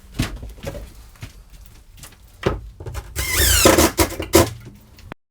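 Handling sounds from backer board installation: several sharp knocks and clicks, then a loud rasping noise lasting about a second, starting about three seconds in. The sound cuts off abruptly just before the end.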